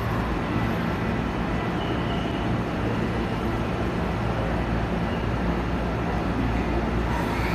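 Steady low hum and rumble of a Hankyu 1000 series electric train standing at a station platform, its equipment running at rest, with the general noise of the station around it.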